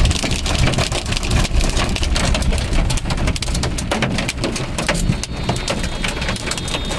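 Hailstones hitting a moving car: a rapid, dense patter of sharp clicks over the low rumble of the car.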